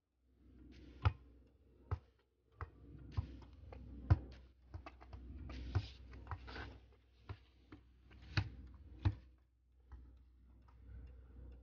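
A football being juggled: about ten short, sharp taps at irregular intervals as the ball is struck by foot, thigh and head.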